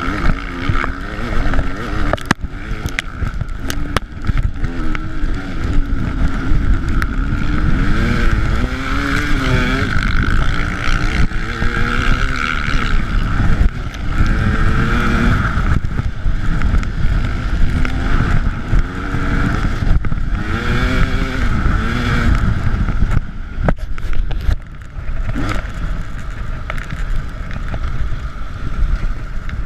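KTM 300 EXC's single-cylinder two-stroke engine revving up and down repeatedly as the bike is ridden hard over rough ground, with a few sharp knocks.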